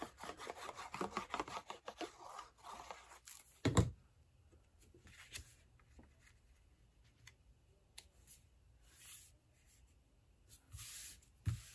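Sponge tip of a liquid glue bottle scratching and rustling across embossed cardstock for about three seconds, then a single thump as the glue bottle is set down on the cutting mat. After that, soft brushing sounds of hands smoothing the glued panel onto the card.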